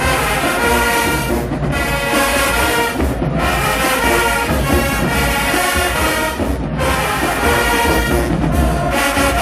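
HBCU marching band brass playing loud, full chords in short phrases, breaking off sharply a few times between phrases.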